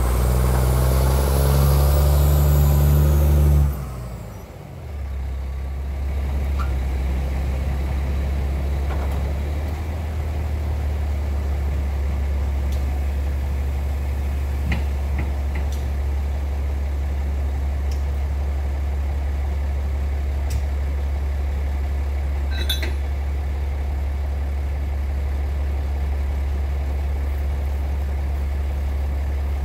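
Heavy diesel earthmoving-equipment engine working hard during a stuck haul truck's tow-out, then throttling back suddenly about four seconds in and settling to a steady low idle.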